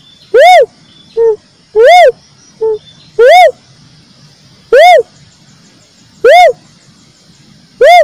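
Cuckoo-dove (uncal) calling: a loud whooping note that rises then falls in pitch, repeated six times about every second and a half. A shorter, lower note follows the first two. It is a recorded lure call used to draw the birds in.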